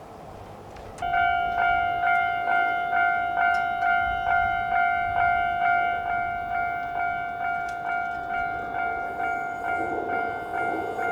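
Japanese railway level-crossing warning bell starting up about a second in and ringing its 'kan-kan' tone about twice a second, signalling an approaching train. A low rumble builds near the end.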